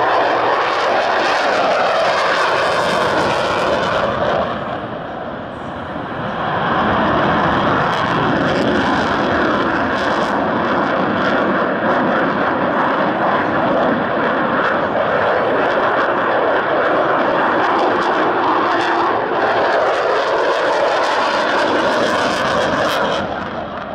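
F-16 fighter's jet engine running at high power through display manoeuvres, a loud steady noise with sweeping shifts in tone as the jet passes. It dips briefly about five seconds in and swells again, and the afterburner is lit near the end.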